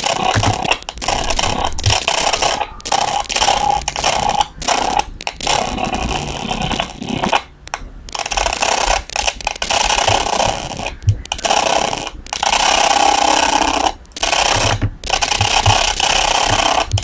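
Loud, dense, buzzy synthetic audio from a computer sound-effects simulation, broken by frequent brief cutouts.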